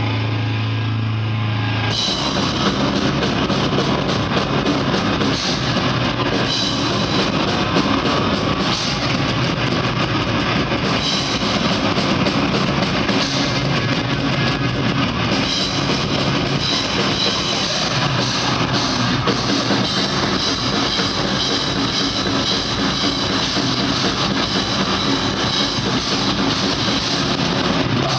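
Grindcore band playing live at full volume: distorted guitars, bass and drum kit. A low held note opens the stretch, and the full band crashes in about two seconds in, then keeps up a dense, unbroken wall of sound.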